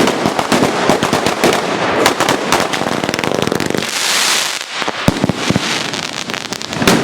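Batteria napoletana ground fireworks: a chain of firecrackers going off in rapid succession as a dense crackle for about three and a half seconds, then a brief hiss around four seconds in, followed by a few separate loud bangs, the loudest near the end.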